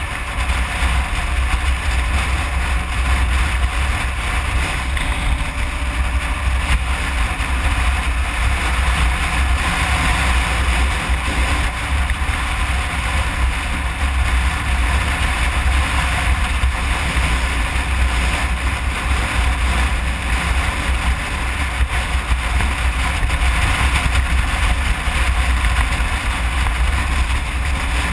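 Kawasaki KLR 650 dual-sport motorcycle's single-cylinder engine running steadily at cruising speed, with wind rumbling on the microphone.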